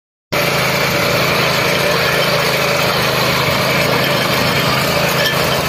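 KisanKraft KK-IC-212P power weeder's 7 hp four-stroke engine running steadily at working speed while its rotary tines till dry soil. The sound sets in abruptly a moment in.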